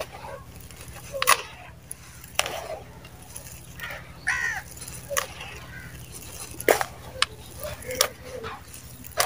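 Hands digging into and scooping dry, crumbly mud powder in a plastic tub: soft gritty rustling with sharp crunches of clumps breaking, about six times. A steady low hum runs underneath, and a brief call sounds near the middle.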